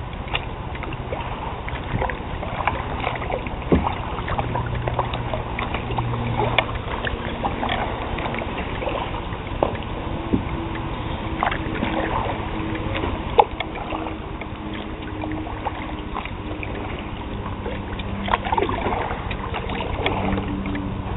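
Kayak being paddled on calm river water: paddle strokes with swishing and dripping water, and scattered light knocks and clicks throughout.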